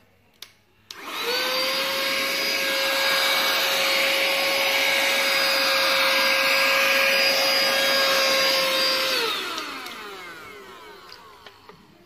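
Portable mini 2-in-1 handheld vacuum cleaner switched on with a click, its motor quickly running up to a steady high whine over a rush of air. About nine seconds in it is switched off and the whine falls away as the motor spins down.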